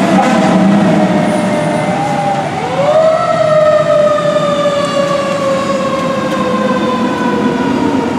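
Fire engine's warning siren: steady tones for the first couple of seconds, then about two and a half seconds in it winds quickly up in pitch and slowly falls away for the rest.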